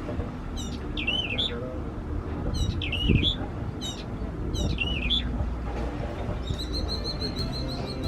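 A bird calling, a short high chirping phrase repeated three times about two seconds apart, over low rumbling background noise. A low thump comes about three seconds in.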